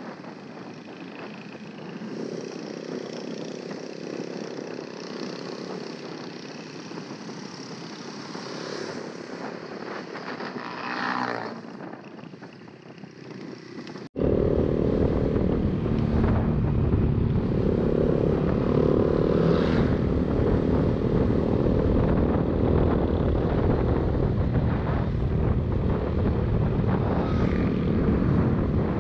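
Honda RS150's single-cylinder four-stroke engine running on the move, heard through a GoPro with no external mic, so wind noise is mixed in. A brief falling whine comes about ten seconds in, and about halfway the sound jumps suddenly to a much louder, steady rush of wind and engine.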